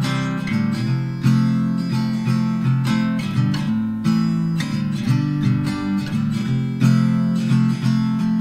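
Background music led by acoustic guitar, with plucked and strummed notes.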